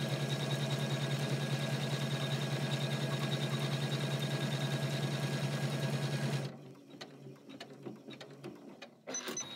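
Janome 500E embroidery machine stitching at a steady rapid pace, then stopping suddenly about two-thirds of the way in at the end of the first thread colour. A few faint clicks and a short high tone follow near the end.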